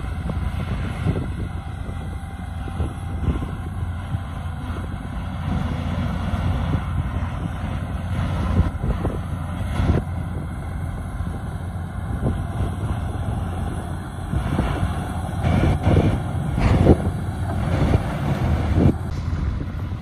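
Shantui DH17 C2 bulldozer's diesel engine running steadily as the dozer pushes a pile of earth and stone, with clanks and knocks from the tracks and blade that grow louder a few seconds before the end.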